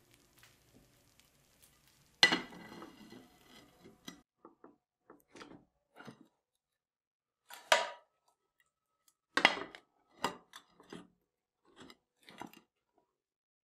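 A frying pan and a ceramic plate knocking and clinking against a gas stove's metal pan supports: one loud clatter about two seconds in, then a scatter of lighter knocks and clinks.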